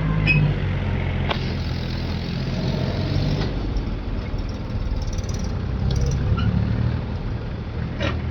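Heavy diesel machinery engine running steadily, with a sharp knock about a second in and another near the end.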